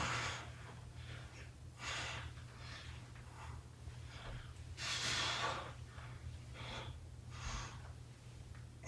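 A man breathing hard through a set of reverse crunches: a string of short, forceful breaths every second or two, the strongest about five seconds in, over a faint steady low hum.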